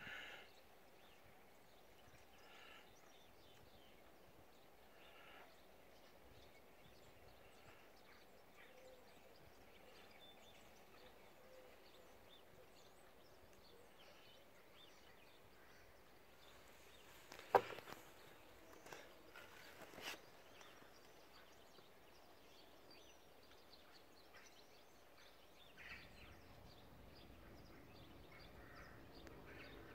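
Near silence: faint outdoor ambience. A single sharp click a little past halfway through is followed by a few softer ticks over the next couple of seconds.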